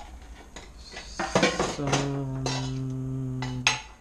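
Stainless-steel kitchenware being handled: a few light clinks, then a loud clank and a steady metallic ring lasting about two seconds, stopped short by another clank near the end. It is the steel spice box (masala dabba) and its lid being opened and set on the counter.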